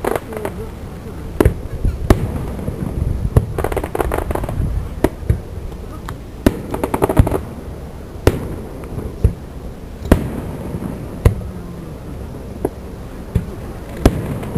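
Fireworks exploding: a string of sharp bangs about one to two seconds apart, each with some echo after it. Twice, about four and seven seconds in, there is a dense spell of crackling.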